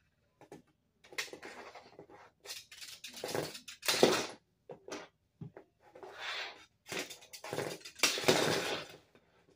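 Plastic Lego spinner pieces clattering and scraping against a plastic arena floor as they are handled and gathered up. The clatter comes in irregular bursts, loudest about four seconds in and again about eight seconds in.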